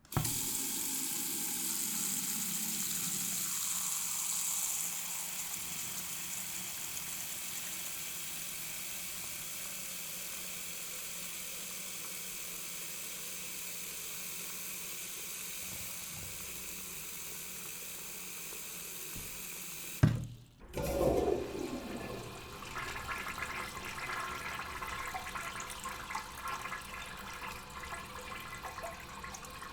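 Tap water running into a sink, a steady even stream for about twenty seconds. It breaks off with a click and a brief gap, then water runs again, splashier and less even.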